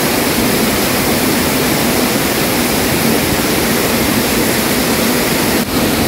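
Loud, steady rush of a mountain waterfall dropping about 15 m over rocks, with a brief break near the end.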